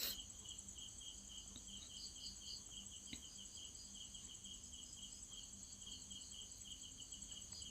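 Crickets chirping in a quiet background, a high pulsing trill that runs on steadily. There is a click right at the start and a faint tick about three seconds in.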